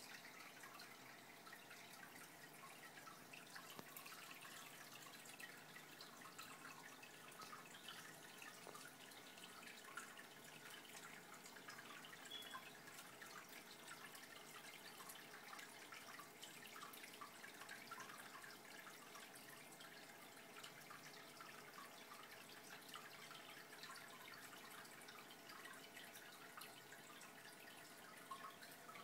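Faint water trickling and dripping from an aquarium filter, a steady patter of small droplets over a steady faint hum.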